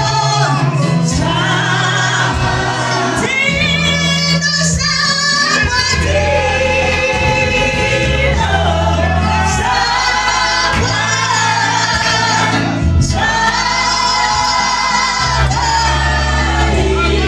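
Live Shona gospel song, amplified through microphones: a woman leads the singing and backing singers join her, over low bass notes that change every second or two.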